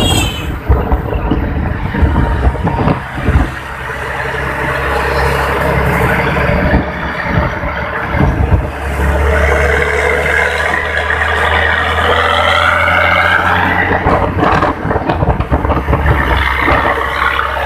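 Bus engine running through a 'ngorok' (snoring) modified exhaust, giving a deep, steady low rumble. The first few seconds are choppy and uneven before the rumble settles.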